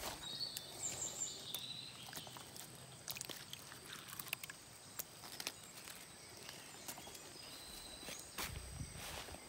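Footsteps and rustling through leafy undergrowth, with scattered light clicks. A few short bird chirps come in the first second or two and again near the end, over a steady high insect whine.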